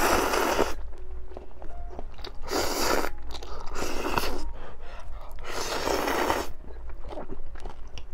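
Ramen noodles slurped from a bowl: four loud, airy slurps, each under a second long, with quieter gaps between them.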